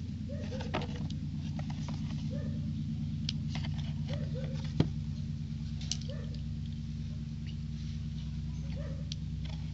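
Fingers handling a small cardboard toy box as it is turned over, with light scratching, rubbing and clicks on the cardboard, and one sharper click about five seconds in. A steady low hum runs underneath.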